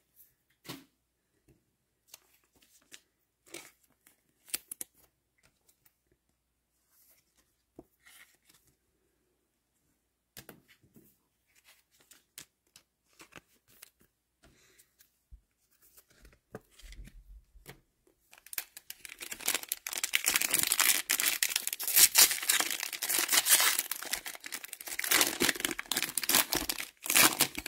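Sparse, faint rustles and clicks of cards being handled, then, from about 18 seconds in, a loud stretch of tearing and crinkling as a trading card pack's wrapper is ripped open.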